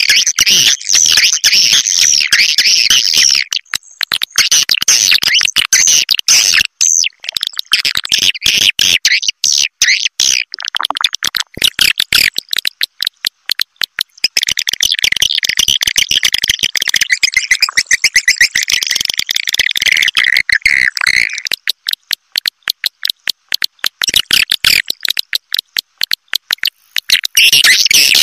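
Swiftlet lure call (walet roosting call): dense, high, rapid twittering chirps of edible-nest swiftlets in long runs, broken by stretches of fast dry clicks. A sound of this kind is played to draw swiftlets in to roost.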